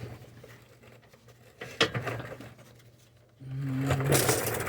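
A single metallic knock, then near the end a short stretch of loud metal scraping as the Dodge Durango's exhaust is pried and shifted under the vehicle.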